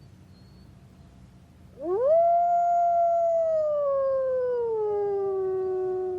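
A wolf howling: one long howl that rises quickly about two seconds in, holds, then slowly slides down in pitch. Near the end a second howl joins at a higher pitch.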